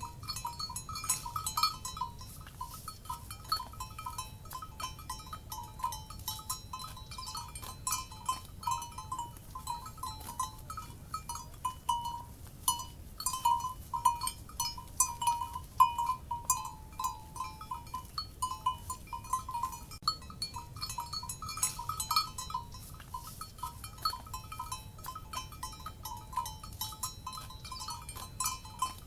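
Cowbells on grazing livestock clanking irregularly and continually, many short ringing strikes of a middling pitch, over a faint low steady background noise.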